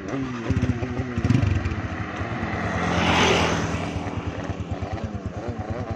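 Motorcycle engine running through an aftermarket 'kolong kobra' racing exhaust, a fast, even pulsing beat that begins about half a second in. It surges briefly about a second in and swells into a louder hiss around three seconds.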